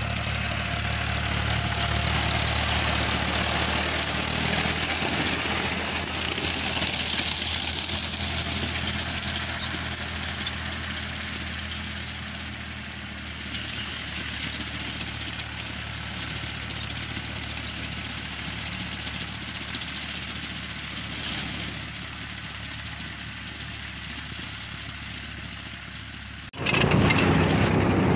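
Powertrac 445 tractor's diesel engine running steadily as it pulls a paddy reaper through the field, growing fainter as the tractor moves away. About 26 seconds in, the sound cuts suddenly to a much louder close-up of the running tractor and reaper.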